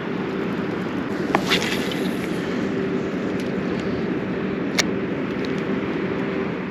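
A steady engine drone with a constant low hum, with a few sharp clicks about a second and a half in and again near five seconds.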